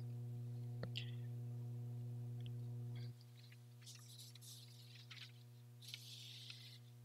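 Steady electrical mains hum with a stack of evenly spaced overtones, which drops sharply in level about three seconds in. Faint clicks and soft rustles sound over it.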